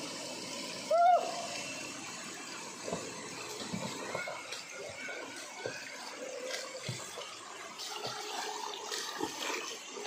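Shallow stream water running steadily over rocks, with the splashing of someone wading through it. A short, high-pitched, arching call about a second in.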